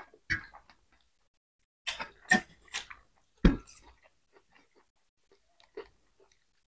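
Close-up chewing and lip-smacking of people eating roasted pork and rice by hand: scattered wet mouth clicks, with a cluster of louder smacks about two to three and a half seconds in.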